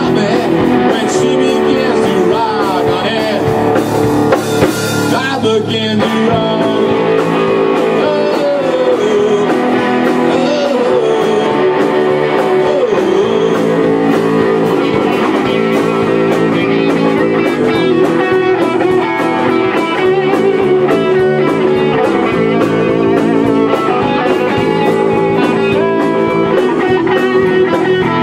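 A live rock band playing steadily: electric guitars, bass and a drum kit with cymbals, and a lead guitar line bending notes around the middle.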